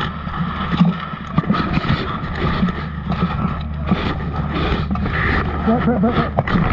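Muffled rubbing and rumble from a chest-mounted action camera covered by padded armour, with a few sharp knocks and indistinct voices in the background.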